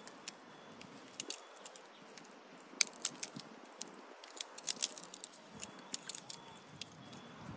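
Faint scattered sharp clicks and crackles over a quiet outdoor background, bunching up about three seconds in and again around five to six seconds; no monkey crying is heard.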